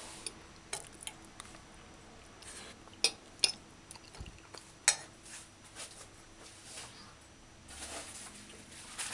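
Metal fork scraping and clinking against a plate while scooping up rice and beans. There are light scattered taps, with three sharper clinks about three, three and a half and five seconds in.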